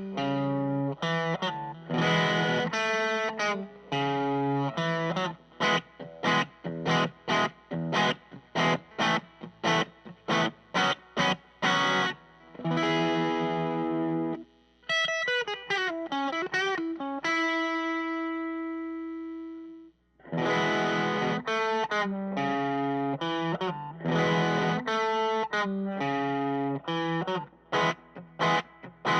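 Electric guitar driven through a Tube Screamer-style overdrive into a Vox AC10 amp, playing a choppy riff of short chords and single notes. About halfway through it slides down into one held note that rings out and fades before the riff picks up again.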